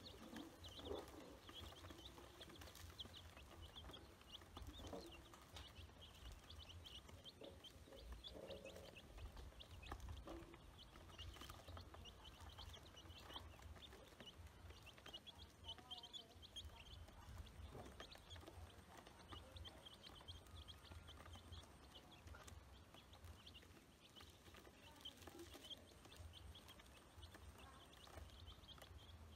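A brood of ducklings and chicks peeping faintly and continually as they feed, with many quick high peeps overlapping, over a steady low rumble.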